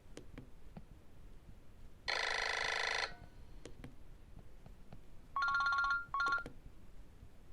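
Nokia E65 mobile phone playing short ringtone previews through its speaker: one ringtone of about a second starts about two seconds in, and two short bursts on two steady tones follow near the end. Faint clicks fall between them.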